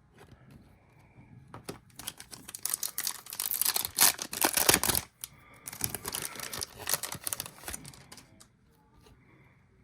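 Foil trading-card pack wrapper being torn open and crinkled by hand, a dense crackling in two spells with a brief pause between them.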